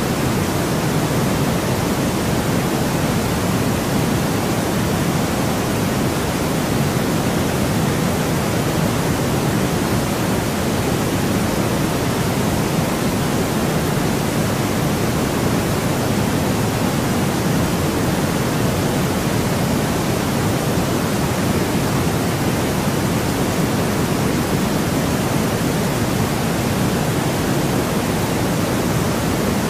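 Steady, unbroken white noise for sleep: an even hiss that never changes, fuller and heavier in the low end than the top.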